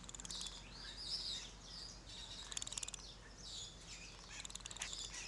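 Prairie dog chattering: high chirps broken by three quick rattling runs of clicks.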